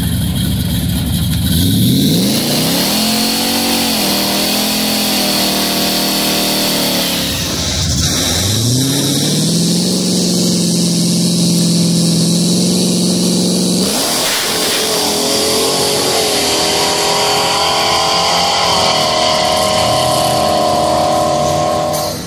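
Chevrolet C10 pickup's engine revving hard on a drag strip: its pitch climbs steeply and holds high, dips sharply and climbs again about seven seconds in, then breaks off about fourteen seconds in and settles into a steady high run to the end.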